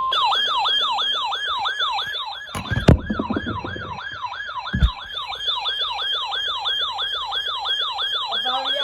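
Electronic yelp siren wailing in fast, repeating sweeps, about three a second. Two short thumps come about three and five seconds in.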